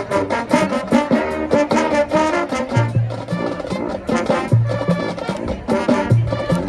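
High school marching band playing: brass melody over a driving drumline beat, with low bass notes falling every second or two.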